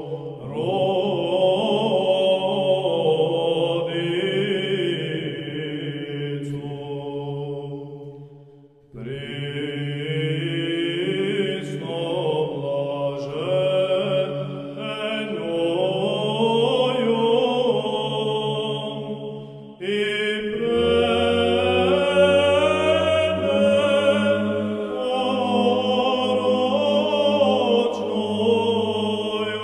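Orthodox church chant: voices sing a moving melody over a held low drone. The singing nearly stops once about a third of the way through, and resumes with a deeper drone about two-thirds of the way in.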